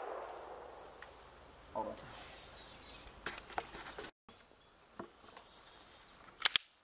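The echo of a handgun shot dying away, then faint outdoor quiet with a few small sharp clicks. Near the end comes a sharp double crack of a handgun shot that stops abruptly.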